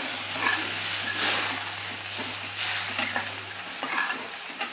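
A spatula stirring a watery tomato curry gravy in a pan, swishing and scraping through the liquid as it sizzles over the heat.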